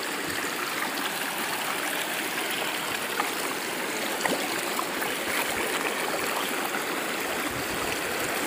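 Shallow, fast-flowing stream rushing steadily over stones, heard up close while wading through it.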